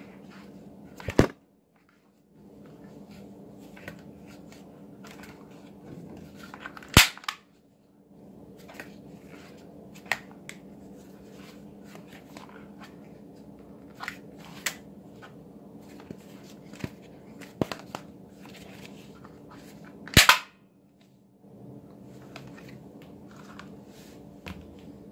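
Toy cap gun firing three sharp bangs, about a second in, about seven seconds in and about twenty seconds in, with small plastic clicks and handling noise between.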